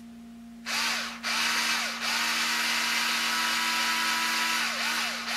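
Cordless electric screwdriver with a flexible shaft extension running in bursts to back out the C-hub screws on an Axial SCX10 II axle. It starts about a second in, stops briefly, then runs steadily, its whine dipping in pitch a few times under load near the end.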